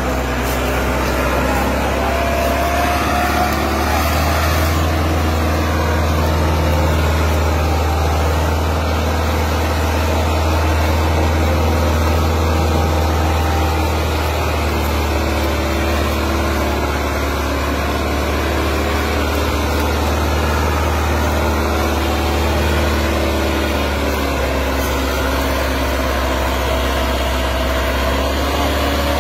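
Massey Ferguson 385 tractor's diesel engine labouring steadily under a heavy pull, a deep continuous drone at near-constant pitch. The strain is that of hauling an overloaded sugarcane trolley, enough to lift the tractor's front wheels.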